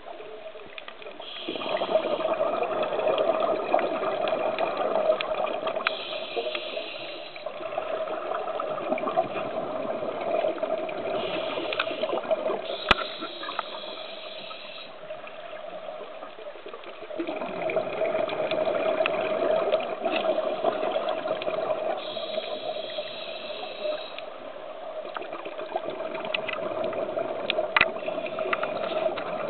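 Scuba regulator breathing heard underwater: a rushing, bubbling sound of exhaled air. It is loud for several seconds starting about a second and a half in, eases off, then comes back loud past the middle.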